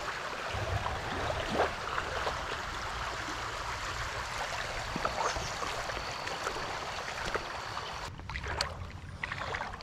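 Water of a small creek running steadily, an even rushing sound. About eight seconds in, the sound abruptly turns duller.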